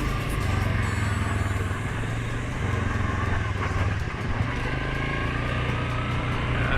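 2019 Suzuki KingQuad 750 ATV's single-cylinder engine running steadily as it rides along a dirt trail, a constant low drone.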